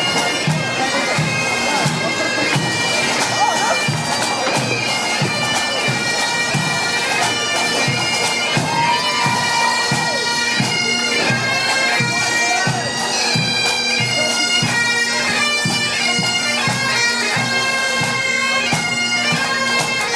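Pipe band playing: bagpipe melody over a steady drone, with a drum beat about twice a second.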